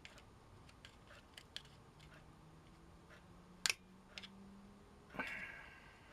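Faint small clicks and taps of the solar garden light's parts being handled and pried apart where the old glue has given way, with a sharp click about three and a half seconds in. About five seconds in, a knock is followed by a short ringing tone that fades within about a second.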